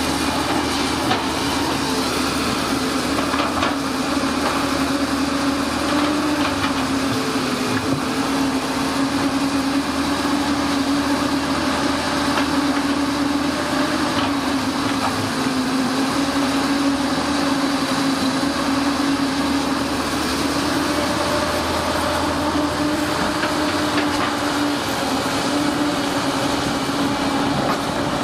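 Caterpillar 320C hydraulic excavator's diesel engine running steadily under working load, with a steady hum that wavers slightly in pitch as the boom and bucket move.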